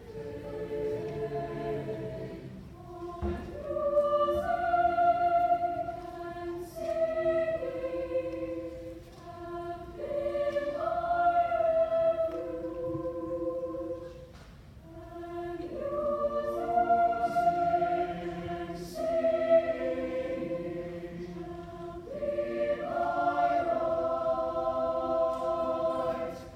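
Mixed choir singing sustained chords in long phrases that swell and fade, breaking off near the end.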